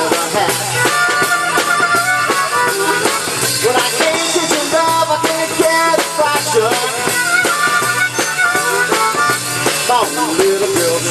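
Live rock band with drum kit, electric guitar and bass, and a harmonica played into the vocal microphone, its wavering notes over a steady beat.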